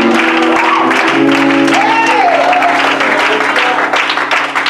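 Congregation clapping, with voices calling out over sustained keyboard chords that change about a second in: the church answering the preacher's line.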